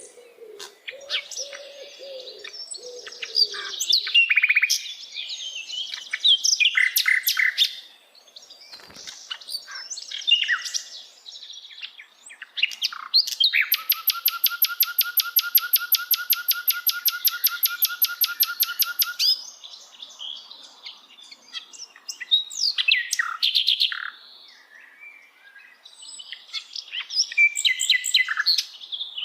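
Sikatan londo flycatcher singing: bursts of varied high chirps and warbled phrases. In the middle comes a long, rapid, even trill lasting about six seconds.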